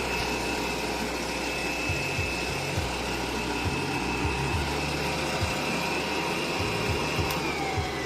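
Electric stand mixer's motor running with a steady whine; near the end the whine falls in pitch as the motor slows down.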